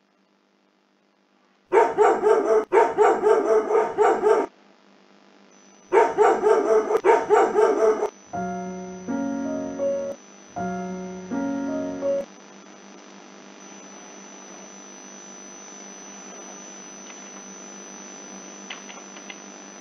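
A dog barking rapidly in two bouts, followed by a short piano phrase played twice, then a faint steady hum with a thin high tone.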